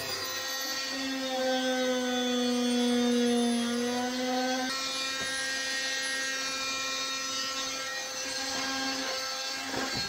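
Oscillating multi-tool cutting a hatch opening through a bulkhead, a steady buzzing whine that sags slightly in pitch under load, with a dust-extraction vacuum hose on the tool. The sound changes abruptly about halfway through and the buzz stops shortly before the end.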